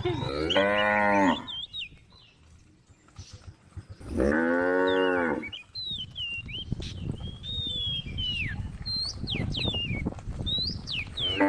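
Cows mooing: two long low moos, the first at the start and the second about four seconds in, with a third beginning at the very end, as the cows call to the herd. Short high chirps come in between the moos.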